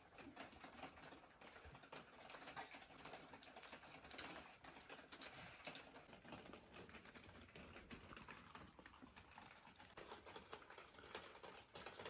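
Faint, scattered small clicks and rustles of people eating by hand: flatbread being torn and food picked from plates, with soft chewing and mouth sounds.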